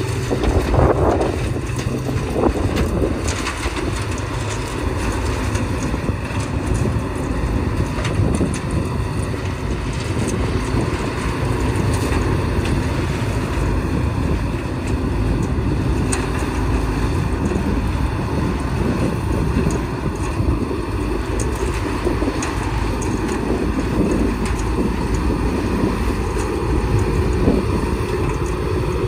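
CLAAS Mega 204 combine harvester running steadily while it cuts and threshes standing flint corn.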